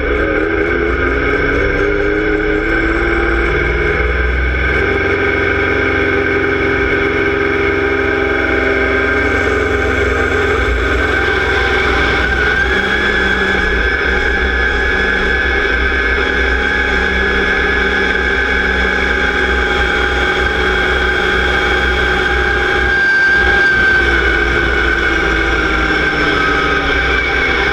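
Deutz-Fahr X710 pulling tractor's diesel engine under full load through a pull, heard from the tractor: the revs climb at the start, hold steady with a high whine over the engine through the second half, and drop near the end.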